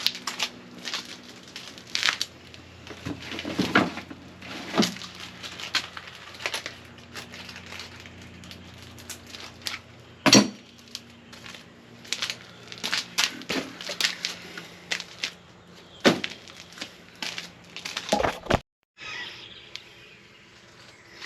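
Scattered knocks and clanks of steel parts and tools being handled, irregular and unrhythmic, over a steady low hum. The sound cuts out for a moment near the end.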